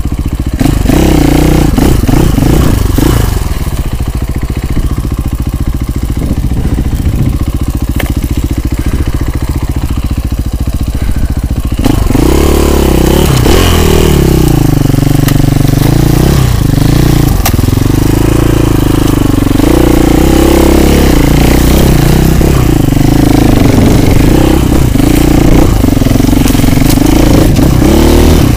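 Husqvarna FE 450 single-cylinder four-stroke enduro motorcycle engine. It idles with a low, even chug, then a little under halfway through it revs up and keeps rising and falling in pitch as the bike is ridden.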